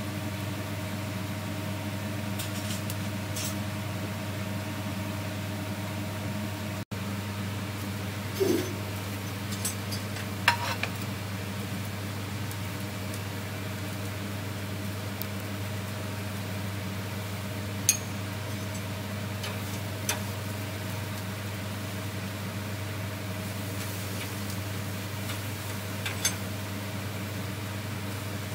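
Vegetable skewers grilling over a gas grill with glowing burners: a steady low hum and hiss with faint sizzling, and a few sharp clinks of utensils against the grill grate.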